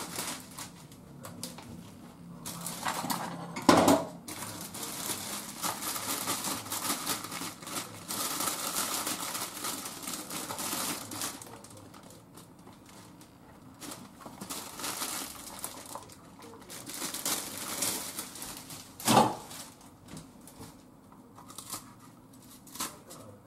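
Kitchen food-prep handling sounds: a plastic bag crinkling and rustling for several seconds as a half cabbage is handled in it, with two sharp knocks on the counter or cutting board, about four seconds in and again near the end. A few light knife cuts on the cutting board follow near the end.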